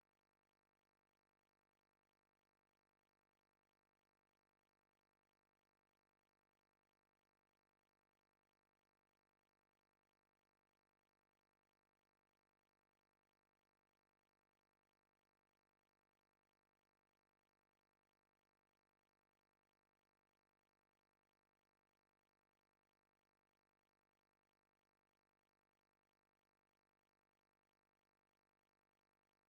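Silence: the soundtrack is essentially empty, with only a faint steady hiss.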